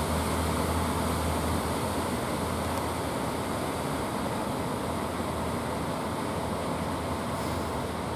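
Steady wash of breaking surf with the low hum of a fishing boat's engine as it motors in through the waves. The hum is strongest in the first couple of seconds.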